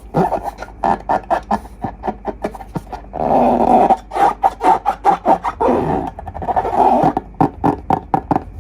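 Slime being squeezed and kneaded by hand: rapid wet clicks and pops with longer squelches about three seconds in and again near six seconds.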